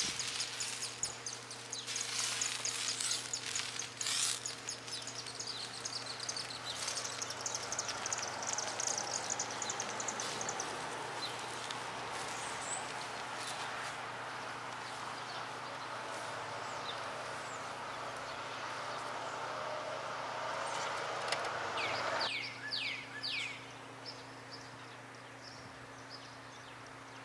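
Oil sizzling on a hot griddle as it is wiped on with a paper towel, with scratchy wiping strokes, while the griddle is being seasoned. The hiss stops about 22 seconds in, and a bird then chirps a few times.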